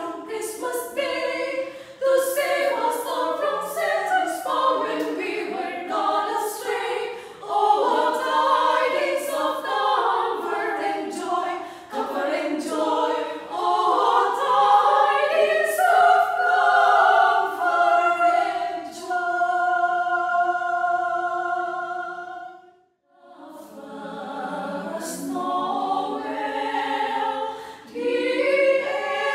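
A small group of women singing a cappella in harmony. About two-thirds of the way through they hold a long chord that cuts off into a short pause, then the singing starts again softly and grows louder.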